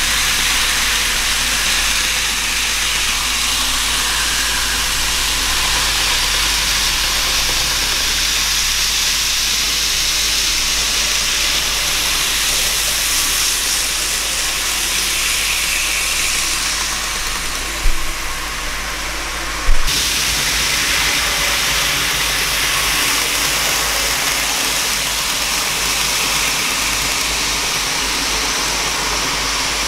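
N-gauge model trains running on the layout's track: a steady whirring hiss of the small motors and wheels. Two short knocks stand out about two-thirds of the way through.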